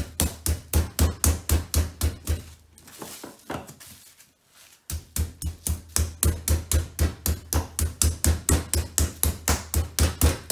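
Metal meat-tenderizer mallet pounding a chicken breast wrapped in cling film on a kitchen worktop to flatten it, in rapid even thuds about four or five a second. The pounding stops for about two seconds a few seconds in, then carries on.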